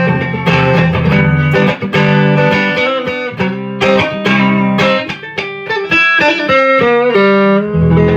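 Electric guitar on its neck pickup, a DiMarzio Pro Track, played clean through a Marshall Origin 20-watt amp: a continuous run of picked chords and quick single-note lines with low strings ringing under them.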